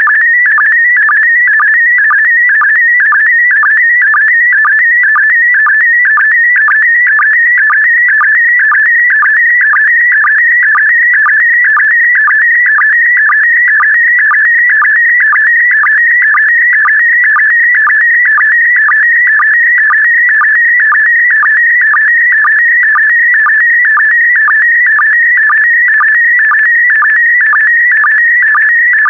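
Slow-scan TV image signal in PD120 mode: a continuous warbling electronic tone around 2 kHz. It is broken by a short lower sync blip about twice a second, each blip marking the start of a new pair of image lines.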